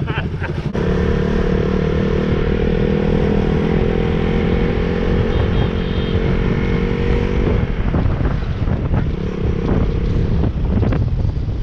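Motorcycle engine running steadily, its note holding level for about seven seconds before turning rougher and less even.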